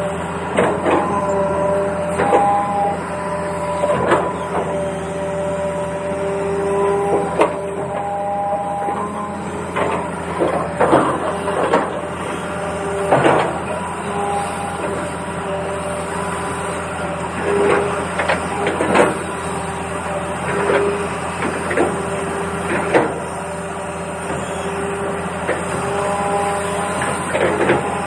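Small electric motors and plastic gearboxes of a toy excavator whirring, the whine stepping between a few pitches as different motions start and stop. Irregular clicks and knocks run throughout.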